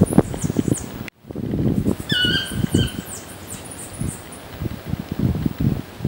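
Birds calling in tropical forest: high, thin chirps throughout, and about two seconds in a short, clear call that rises quickly and then holds. Soft low knocks and rustling run under it, and the sound cuts out for a moment about a second in.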